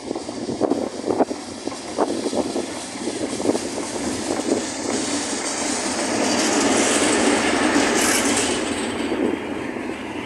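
EMD GR12 diesel locomotive passing close by, hauling empty coil-carrier flat wagons. The noise of its engine and wheels builds to its loudest about six to nine seconds in, then eases as the empty wagons roll by. Gusts of wind buffet the microphone during the first few seconds.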